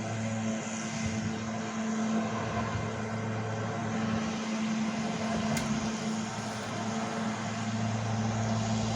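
Small gasoline lawn mower engine running steadily.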